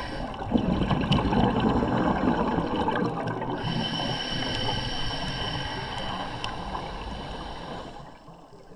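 Underwater bubbling and gurgling with faint scattered clicks, growing quieter near the end.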